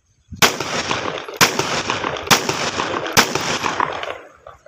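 A 30 bore (7.62×25 mm Tokarev) pistol fired four times, about a second apart, during a test fire. Each shot is followed by a long echoing tail.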